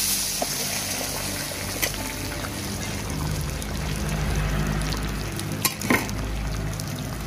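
Whole silver carp frying in hot oil in a pan, a steady sizzle, with a few sharp knocks near two seconds in and again near six seconds.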